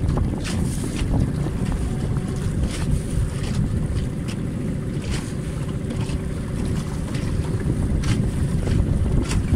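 Wind buffeting the microphone over the rush of water along the hull of a small boat under way in choppy sea, with scattered short splashes.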